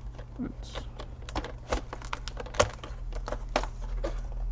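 Small sharp plastic clicks and taps as the laptop's keyboard ribbon-cable connector clips are flipped open one by one and the keyboard is handled, with the loudest click a little after halfway. A steady low hum runs underneath.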